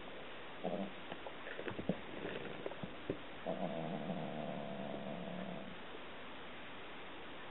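Two cats play-fighting on bedding. A cat gives short low cries near the start, and a few soft knocks and rustles come from the tussle. About three and a half seconds in, a cat lets out one long, low, drawn-out growling call of about two seconds.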